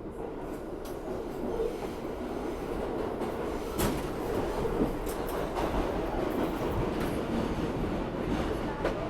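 Inside an R62A subway car running between stations: a steady rumble of wheels on rail, with a few sharp clicks about 4 seconds in and after.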